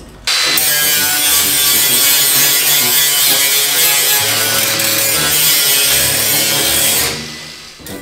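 Angle grinder cutting through the bus's sheet-metal side panel to open a hole for a vent: a steady, harsh grinding that starts abruptly just after the start and dies away about a second before the end. Background music plays underneath.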